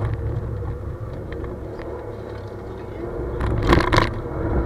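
Car engine running, heard from inside the cabin as a steady low drone. About three and a half seconds in there is a brief loud burst of noise.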